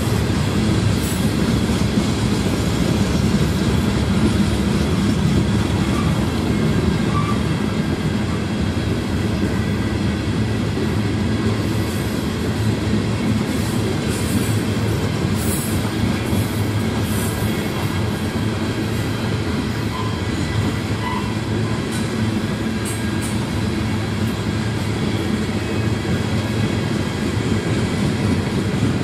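A long freight train of coal hopper cars rolling past, a steady rumble of steel wheels on the rails. Brief faint high squeaks come through now and then.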